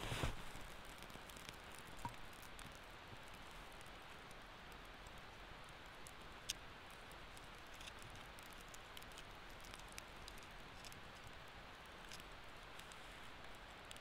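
Small newly lit kindling fire of wood shavings and split sticks, crackling faintly with scattered sharp pops as it catches. A brief rustle of wood being handled comes right at the start, and one sharper pop about six and a half seconds in.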